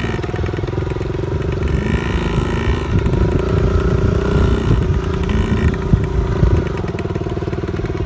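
Small dirt bike engine running steadily, its pitch rising and falling a few times with the throttle. Knocks and rattles from riding over the rough dirt track come in about three seconds in and die away after about six and a half seconds.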